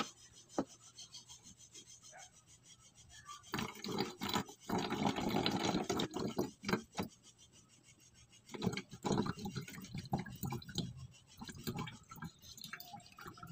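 Water being poured from a ceramic bowl into a plastic spray bottle, a splashing trickle in two spells, the first starting a few seconds in, with small knocks of the bowl against the bottle.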